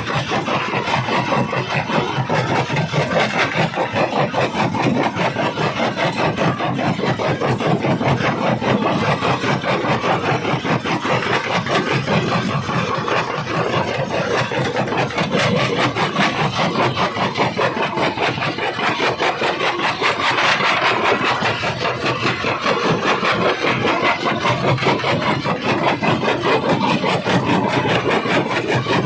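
Jaw rock crusher running and crushing stone: a steady, dense grinding rattle with a fast, even pulse.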